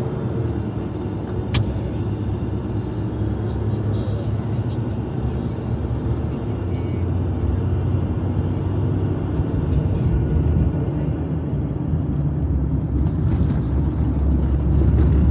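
Jeep Gladiator driving at highway speed, heard as a steady low rumble of engine and road noise that grows louder over the last few seconds. A single sharp click comes about a second and a half in.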